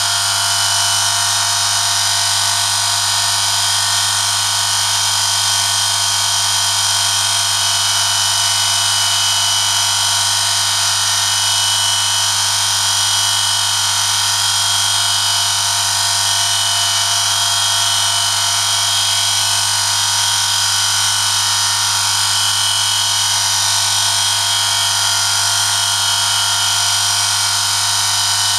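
Oil friction test rig running: an electric motor spins a steel shaft against a test sample held under a 1 kg lever load, metal rubbing on metal through a film of engine oil. The sound is a steady high-pitched whine over a low motor hum, unchanging throughout.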